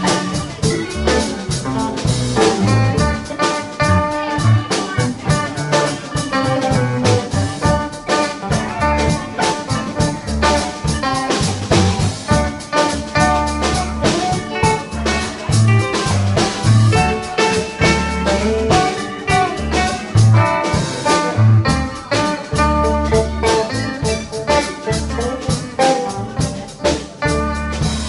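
Live band playing an instrumental passage on electric guitars, keyboard and drum kit, with a steady drum beat and strong low bass notes and no singing.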